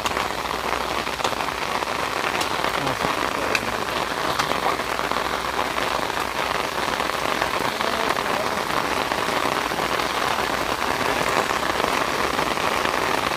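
Heavy rain falling steadily, with a few faint sharp taps in the first few seconds.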